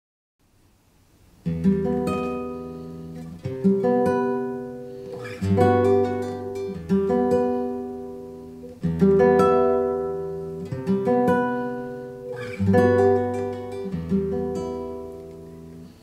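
Classical guitar playing a slow run of chords, each struck and left to ring out, a new one about every two seconds. It comes in about a second and a half in.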